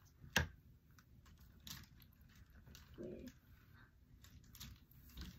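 Scattered light clicks and rustles of clothes and hangers being handled, with one sharper click about half a second in.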